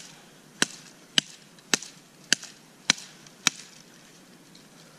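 A hand-held blade chopping the limbs off a small sapling: six sharp blows about every half-second, stopping about three and a half seconds in.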